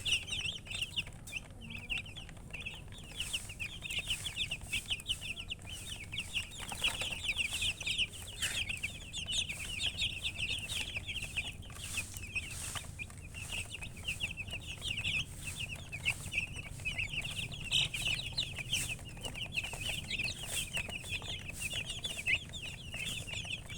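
A brood of baby chicks peeping without pause: a dense chorus of many short, high chirps overlapping one another.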